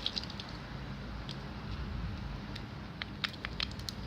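Soft, freshly kneaded homemade slime being squished and pressed by hand: scattered small sticky clicks and pops over a steady low hiss.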